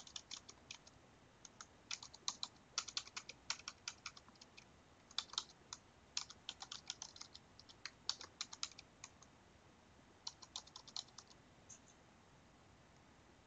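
Computer keyboard typing: quick runs of keystrokes with short pauses between them, stopping about twelve seconds in.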